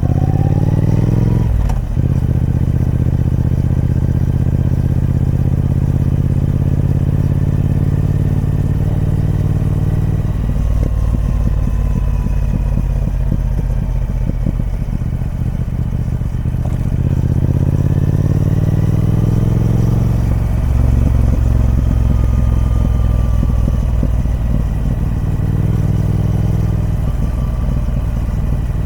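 Triumph Speed Twin 1200's parallel-twin engine running through its stock exhaust under way: revs climb and drop sharply about two seconds in, as at a gear change, sink around ten seconds in, then climb again and drop near twenty seconds before settling.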